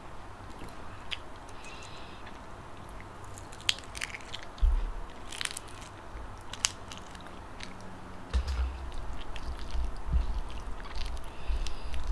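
Close-miked eating: biting and chewing, with a few sharp crackles about halfway through as the shell of a salted duck egg is peeled, and steady chewing thuds in the last few seconds.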